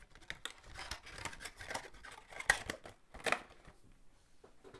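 Hands handling a cardboard trading-card display box: scattered rustles, scrapes and light taps of the cardboard, with two sharper knocks a little after the middle.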